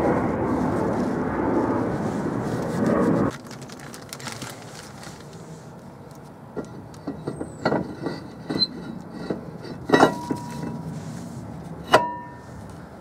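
A new rear brake disc being fitted onto a Ford Focus MK3 hub: light metal clicks and knocks, then two sharp metallic clanks near the end, each ringing on briefly. Before that, a steady rushing noise fills the first three seconds and cuts off suddenly.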